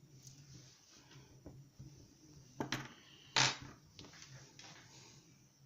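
Faint handling of small lock parts while a pin-tumbler challenge lock is being gutted: two short scrapes, about two and a half and three and a half seconds in, over a faint low hum.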